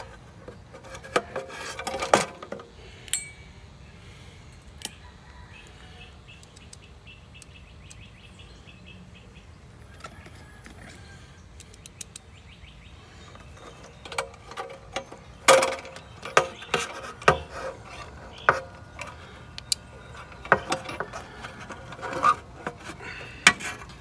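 Scattered small metallic clicks, taps and knocks of hand work inside an air-conditioner condenser's sheet-metal control compartment: a capacitor and its mounting screw being fitted back in place among the wiring. The clicks come in a short cluster about two seconds in and grow busier over the last ten seconds.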